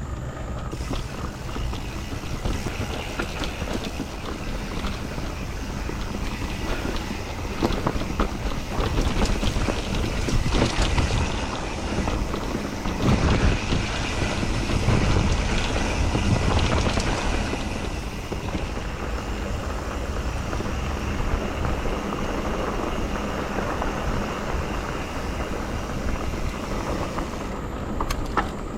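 Mountain bike rolling down a dirt trail: wind rushing over the microphone, tyre noise and the chain and frame rattling and clacking over rough ground, busiest in the middle stretch.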